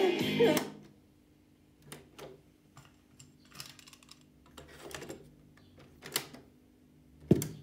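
Music from an Akai PJ-W59 boombox cuts off about half a second in. Then come scattered plastic clicks and clunks of its cassette deck as the tape door is opened, a cassette is taken out and handled, and the door is shut. A louder sharp clack near the end is the press of a deck key.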